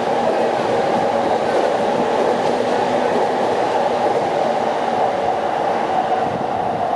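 JR East E353 series electric train running past, with a steady, loud noise of wheels on rail.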